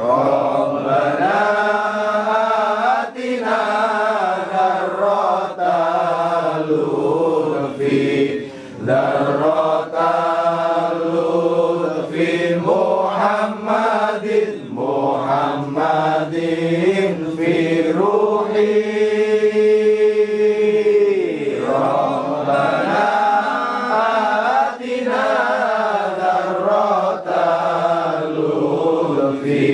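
A group of men chanting Islamic wirid and sholawat in Arabic, a slow melodic unbroken chant with drawn-out notes and one long held note about two-thirds of the way through.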